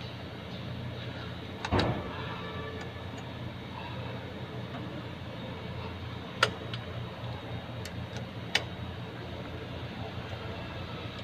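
Sharp metallic clicks of hand tools working on the carburetor of a Suzuki Multicab's F6A engine. There are three clinks, the loudest about two seconds in and the others later, over a steady low hum.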